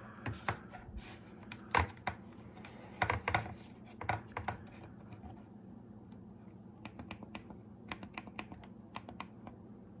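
Plastic push-buttons on a Maytag MBD8959SFH dishwasher's removed control panel clicking as they are pressed again and again, springing back each time. A few louder clicks come in the first half, then a run of quicker, lighter clicks.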